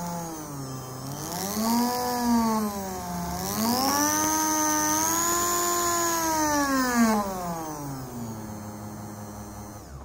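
Small 220 V mixer universal motor, converted to a DC motor with a permanent magnet, running with a whine whose pitch rises and falls several times as its speed changes, then settles lower near the end.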